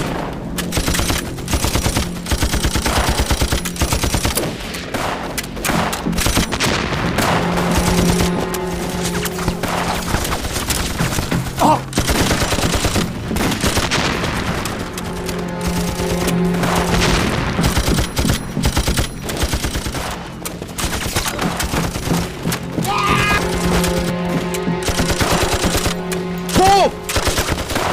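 Film battle sound effects: machine-gun and rifle fire in long, rapid strings of shots, with explosions, over a steady low music score.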